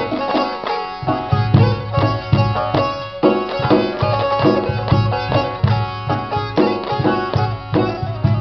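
Instrumental passage of a folk song as background music: plucked string melody over a steady hand-drum beat.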